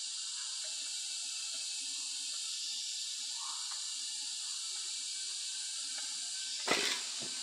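Steady high hiss of forest ambience, with a short crackle of dry leaves and twigs on the forest floor near the end.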